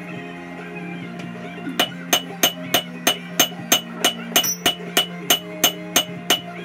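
Hand hammer striking glowing Damascus steel on an anvil, a steady run of blows at about three a second starting near two seconds in, each with a bright anvil ring.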